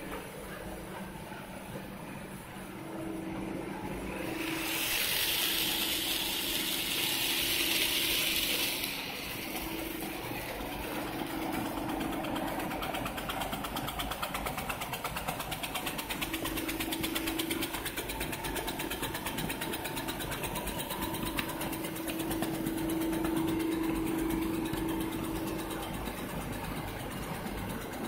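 Center-filled snack extrusion production line running: a steady machine hum with held tones that come and go. A loud hiss from about five to nine seconds in.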